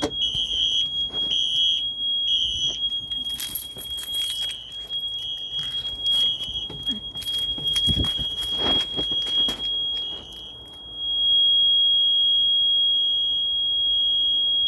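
A fire alarm system sounding after its pull station is pulled. A steady high electronic tone runs with a second tone pulsing on and off over it, and scattered knocks and rustles fall in the middle. It gets noticeably louder about eleven seconds in.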